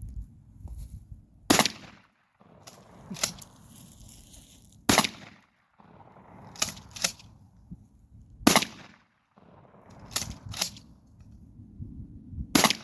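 Four loud gunshots fired with bird-shot loads, roughly three and a half seconds apart, with fainter sharp cracks in between.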